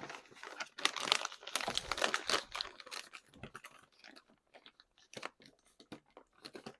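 Mouth chewing a crunchy bite of radish, dense crisp crunches for the first three seconds or so, then a few scattered crunches.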